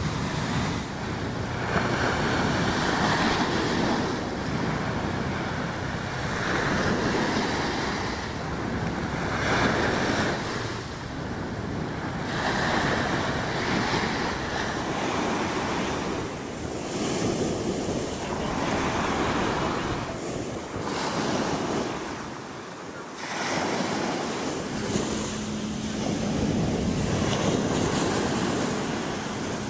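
Surf breaking and washing up a sandy beach, swelling and fading every few seconds, with wind buffeting the microphone.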